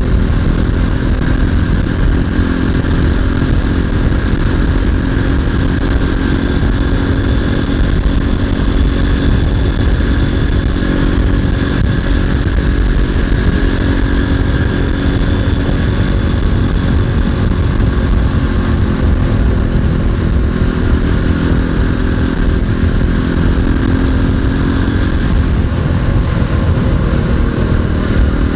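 Single-cylinder 250 cc four-stroke off-road motorcycle engine running at a steady cruise under heavy wind rumble. The engine note shifts a little near the end.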